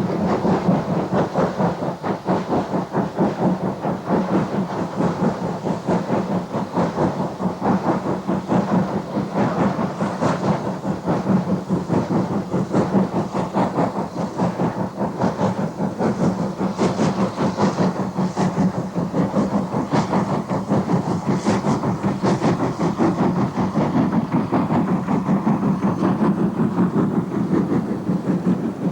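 Class J27 0-6-0 freight steam locomotive working hard, its exhaust beats coming in a rapid, even chuffing rhythm.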